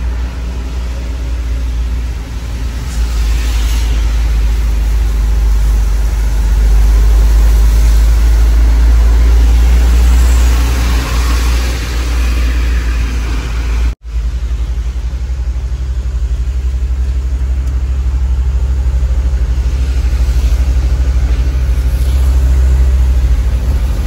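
Truck engine running with road noise while driving, heard from inside the cab as a steady low rumble. The sound cuts out for an instant about halfway through.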